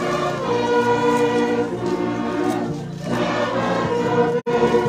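A choir singing, voices holding long notes, with a momentary drop-out near the end.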